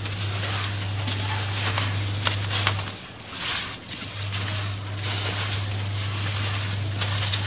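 Dry mix of sand, cement and charcoal ash crumbled by hand and poured back into a plastic tub: a steady pouring hiss full of small crunches and patters. A low steady hum runs underneath, dropping out about 3 s in and coming back a second later.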